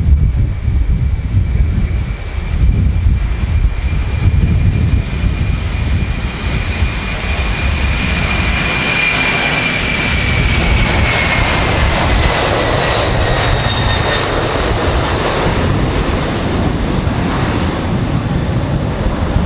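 Boeing 747-400 jet engines at takeoff power as the airliner rolls down the runway and lifts off. A high whine grows louder over a rushing roar, then drops in pitch once the jet has passed, about ten seconds in.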